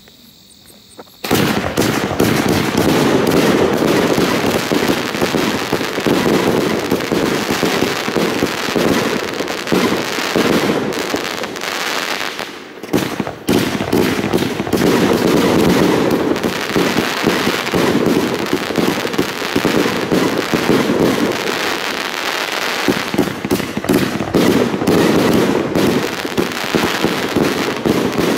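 30mm fireworks cake assortment firing in rapid succession: a dense, continuous run of launch shots and aerial bursts that begins about a second in. The firing briefly dips about halfway, then carries on at full pace.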